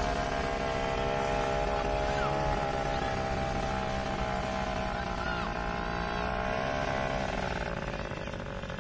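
Powered paraglider's engine and propeller running overhead with a steady pitch that falls lower near the end.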